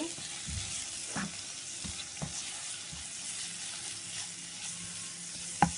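Tomato-onion masala with ground spices sizzling as it fries in a non-stick pan while a spatula stirs it, with a few light taps of the spatula on the pan. One sharp knock near the end.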